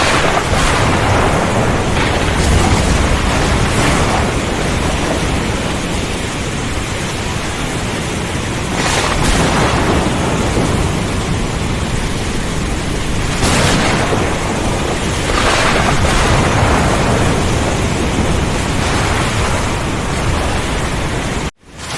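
Thunderstorm: heavy rain and wind as a dense, steady wash with a deep low rumble of thunder, and sharper thunder crashes every few seconds. The sound cuts out for a split second near the end.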